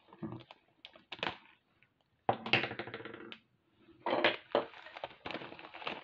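Thin plastic bag of glass seed beads crinkling and rustling as fingers handle it, in short bouts of small crackles and clicks, with brief quiet gaps between.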